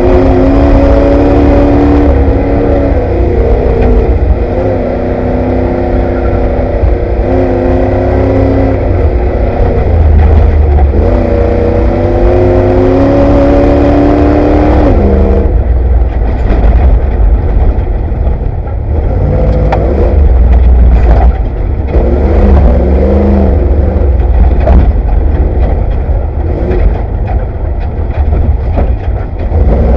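Off-road race Ford Bronco's engine heard from inside the cabin over a heavy low rumble. For about the first fifteen seconds it revs up and drops back several times as it runs through the gears. After that it runs lower and more unevenly, with frequent clattering knocks.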